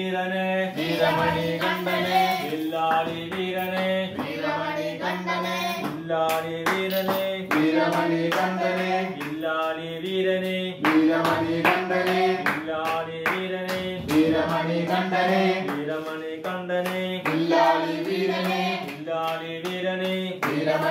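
Devotional singing, a sung melody held on steady notes, with rhythmic hand claps.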